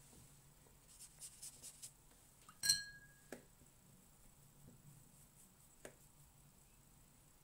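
Watercolour brush working paint in a metal palette tin, faint. There are a few soft brush strokes about a second in, then a single bright clink with a short ring near the three-second mark, and a couple of light taps later.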